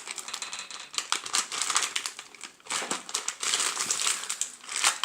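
Shipping packaging crinkling and rustling as it is worked open by hand, in uneven bouts with a short lull midway.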